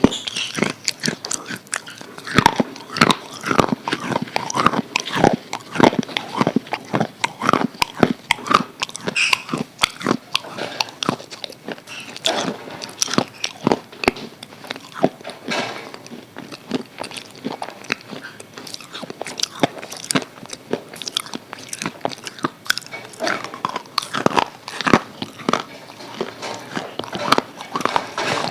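Crispy KFC fried chicken being bitten and chewed: a continual run of crunching and crackling bites with chewing in between.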